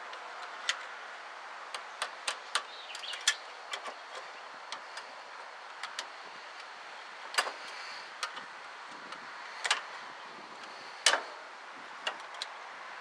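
Irregular metallic clicks and clinks of hand tools working on a carburetor as it is unbolted, over a steady faint hiss; three louder knocks fall about halfway through and near the end.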